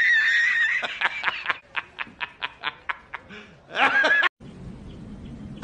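A man laughing hard: a drawn-out high note first, then a quick run of 'ha's at about four a second, and a last louder burst near the end.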